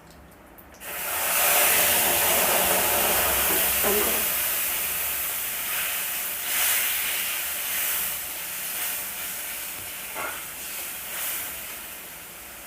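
Tomato paste tipped into hot mustard oil and whole-spice tempering, sizzling loudly as it hits the oil about a second in, then slowly dying down, with a few light knocks of stirring.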